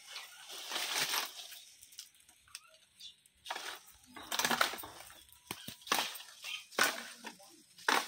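Leaves and branches of a guava tree rustling as its trunk is pulled and shaken, in several separate bursts with short pauses between.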